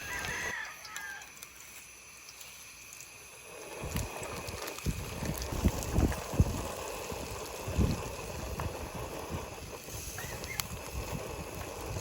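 Rural outdoor ambience. A short bird call comes at the start, and about four seconds in a run of irregular low knocks and rustles begins.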